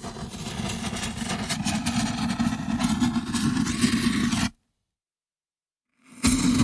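A burning fuse sputtering and hissing with a dense crackle. It stops about four and a half seconds in and starts again after a second and a half of silence.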